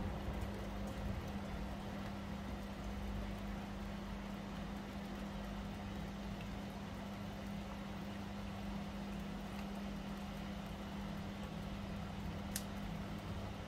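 A steady low mechanical hum over an even background hiss, with one sharp click near the end.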